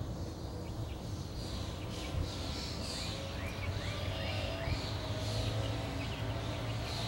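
Young chickens, pullets of four to five weeks, peeping again and again at about one call a second, with a quick run of four short rising chirps in the middle, over a steady low hum.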